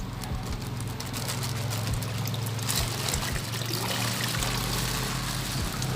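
Water pouring and trickling into a pond as goldfish are tipped out of their shipping bag. A steady low hum runs underneath.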